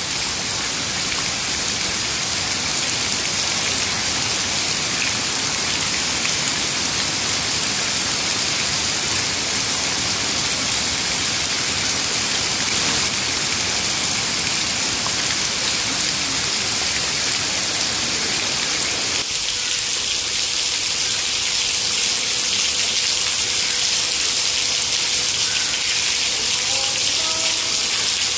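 Heavy rain pelting and splashing into a muddy puddle, a dense steady hiss. About two-thirds of the way through it changes abruptly to a thinner hiss of rain falling through tree leaves.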